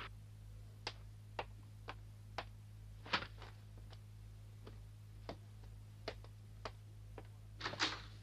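Light, sharp ticks about two a second over a steady low hum, with a louder knock about three seconds in and a brief rustle near the end.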